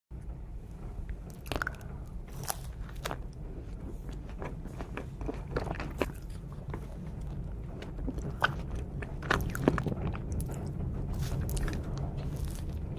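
Close-miked eating sounds of a chocolate ice cream dessert: scattered crisp bites and crunches with wet chewing and mouth clicks, over a steady low hum.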